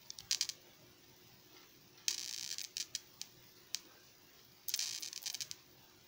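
Brief rustling and light clicks from a hand gripping and moving a foil-wrapped jar, in two short bursts about two seconds in and near the end, over a faint steady hum.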